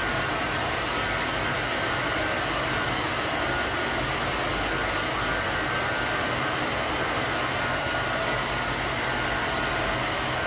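Steady, unchanging rushing of air from an electric blower, like a grooming dryer, running throughout with a faint whine in it.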